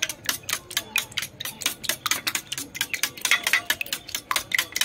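Metal fork beating raw eggs in a stainless steel bowl: a rapid, even clicking of the fork against the bowl, about six strokes a second.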